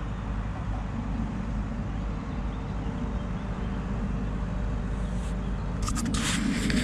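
Steady road traffic noise: a continuous low rumble of cars on a nearby road. Near the end one vehicle passes louder, with tyre hiss.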